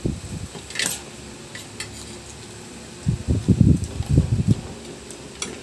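Spoons and forks clinking and scraping on plates of rice while eating, with a sharp clink about a second in. Near the middle comes a cluster of low thumps.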